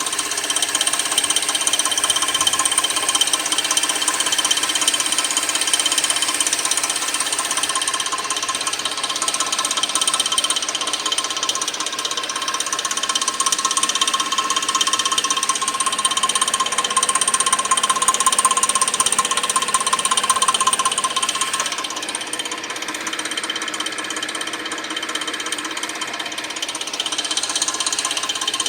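2006 Suzuki 2.7-litre V6 engine running with a fast, steady mechanical ticking and rattling, the unexplained noise the owner is trying to track down.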